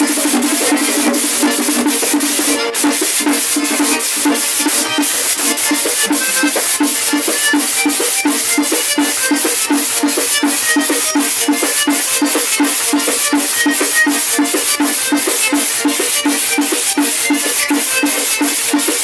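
Live merengue típico (perico ripiao): a diatonic button accordion plays over a metal güira scraped in a steady fast rhythm, about four to five strokes a second.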